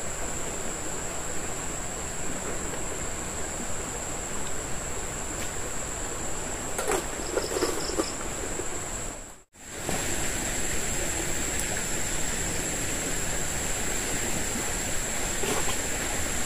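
Evening forest ambience: a steady high-pitched insect drone over a steady rushing hiss, likely the river flowing below. It drops out for a moment about nine and a half seconds in, then carries on.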